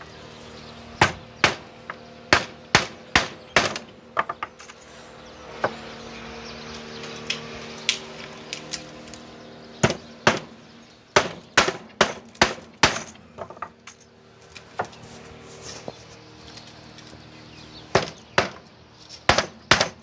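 Hammer driving nails into wooden planks: runs of sharp, ringing strikes, a quick series about a second in, a denser run around ten to thirteen seconds, and more blows near the end.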